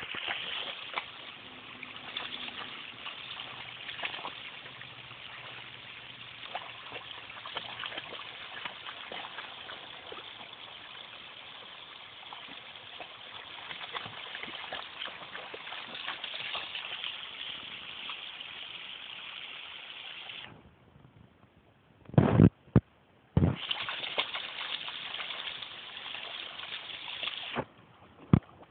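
Shallow creek water running over rocks, with splashing as a dog wades through it. The sound drops away briefly about twenty seconds in, and a few loud, sudden knocks follow.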